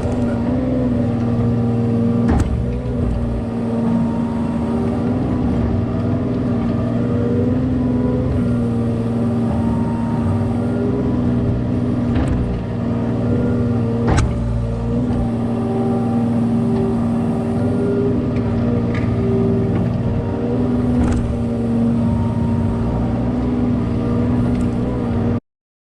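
Kubota KX018 mini excavator's three-cylinder diesel engine running steadily at working revs, its pitch wavering a little under hydraulic load. A few sharp knocks are heard along the way, and the sound cuts off abruptly just before the end.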